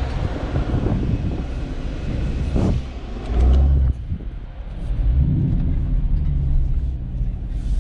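Jeep SRT's V8 running through a fully straight-piped exhaust at low speed, a deep steady rumble. It has a short louder blip about three and a half seconds in.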